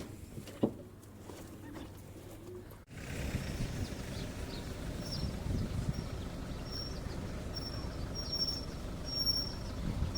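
A bird chirping over and over in short, high, even notes, with a steady low rumble of wind on the microphone. Before that there are a few quiet seconds with a couple of faint clicks.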